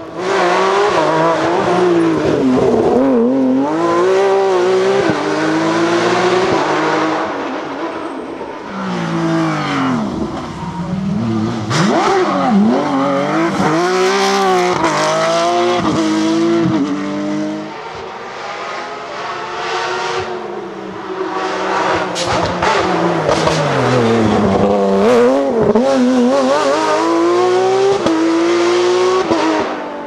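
Porsche 911 rally cars' flat-six engines at race load, revving hard and dropping back through gear changes and lifts as cars pass one after another, with quieter stretches between passes.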